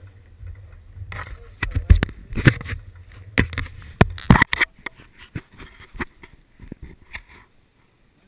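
A run of sharp knocks, bangs and scrapes, loudest in the middle, over a low rumble. It stops suddenly near the end.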